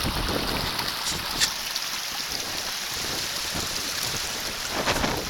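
Shallow river water rushing steadily over and around rocks, with a couple of brief knocks, one about a second and a half in and one near the end.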